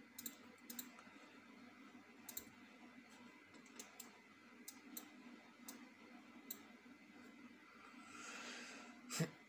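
Computer mouse clicking: single sharp clicks scattered every half second to a second or so over a faint steady hum, with a soft rustle lasting about a second near the end.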